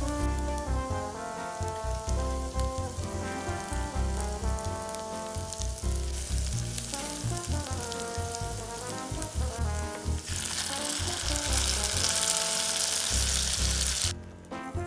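Garlic and dried shrimp sizzling in hot oil in a clay pot, stirred with a silicone spatula, with background music playing over it. The sizzle gets much louder about ten seconds in and drops away near the end as puréed tomato is poured in.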